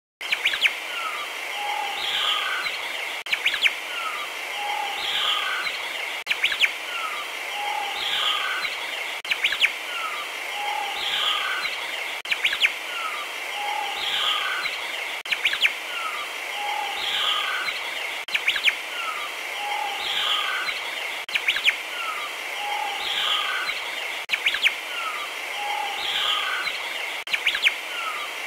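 Looped recording of jungle birdsong: chirps and whistles over a steady high drone, the same three-second stretch repeating over and over. It cuts in suddenly at the start.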